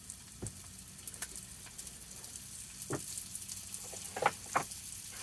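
A steady crackling, sizzling hiss with scattered light clicks, and a few short knocks, the loudest two about four seconds in.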